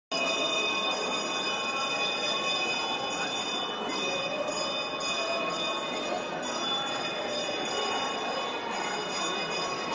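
Temple bells ringing on and on, a dense, steady jangle of overlapping high tones over a general hubbub.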